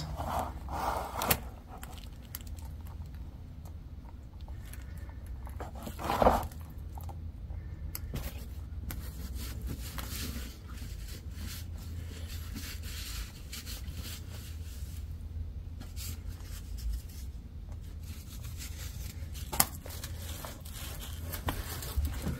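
Scattered handling noises of rustling, scraping and small knocks, with a louder knock about six seconds in and another near twenty seconds, over a steady low hum.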